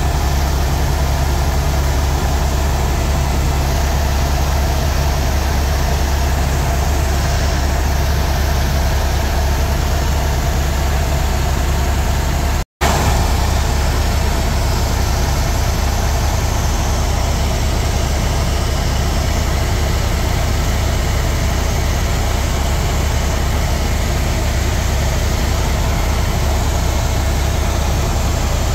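Tour helicopter in flight: a steady, loud drone of rotor and engine. It cuts out for an instant about halfway through, then carries on unchanged.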